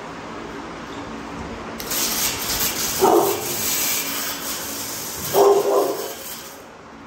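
An American bully dog barks twice, about three seconds in and again near the end, over the steady hiss of a water hose spraying that cuts off shortly before the end.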